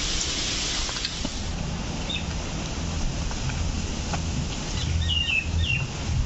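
Wet squelching and rustling of ripe palmyra palm fruit pulp and fibres being kneaded by hand with water in a steel bowl. A bird chirps briefly around two seconds in, then a few short falling chirps follow around five seconds in.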